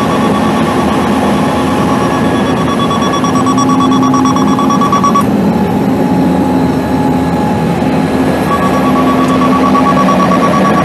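The International DT530 inline-six turbo diesel of a digger derrick truck running steadily. Over it, an electronic warning alarm beeps in a fast, continuous pulse; the beeping stops about halfway through and starts again near the end.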